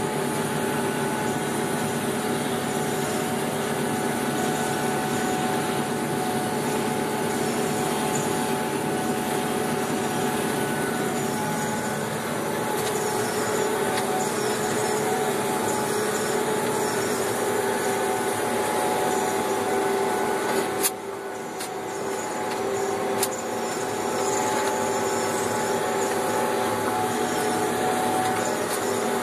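John Deere 6330 tractor running steadily under load with its PTO driving a John Deere 1365 disc mower-conditioner through tall reed canary grass, heard from inside the cab as a steady drone with a few constant tones. About two-thirds of the way in, the drone dips briefly and there are a couple of sharp clicks.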